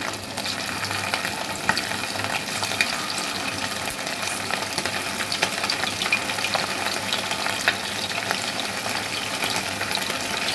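Cornflour-coated chicken pieces frying in hot oil in a pan: a steady sizzle with many small crackles and pops, as more pieces are dropped in one at a time.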